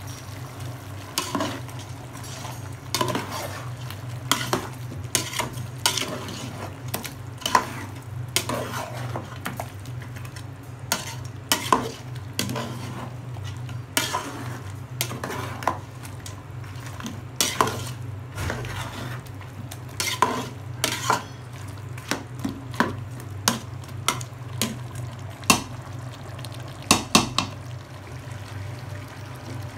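A metal ladle stirring chunks of chicken curry in a large metal pot, knocking and scraping against the pot's sides in irregular clanks, over a steady low hum.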